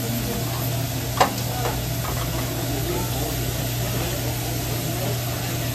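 Diced chicken sizzling on a hot hibachi griddle over a steady low hum. About a second in, a sharp metal clack of a spatula on the griddle, with a smaller one just after.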